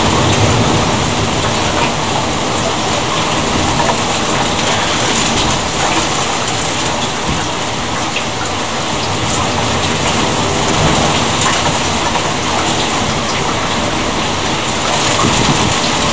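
Steady heavy rain during a thunderstorm, an even hiss with scattered sharp ticks of drops.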